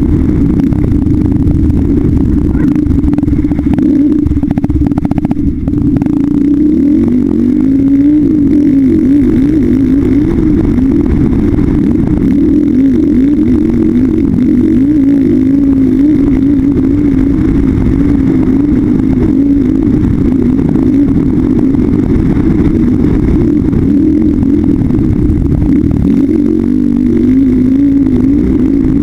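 Polaris Predator 500 ATV's single-cylinder four-stroke engine running under way, its note rising and falling with the throttle, with a brief drop about five seconds in.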